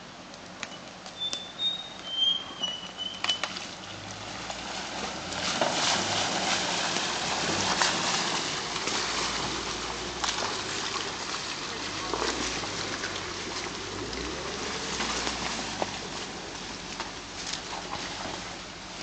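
A Land Rover Discovery creeping through mud and puddles. Its engine rumbles low while the tyres squelch and splash water, growing louder from about five seconds in as it comes close. A few bird chirps sound in the first seconds.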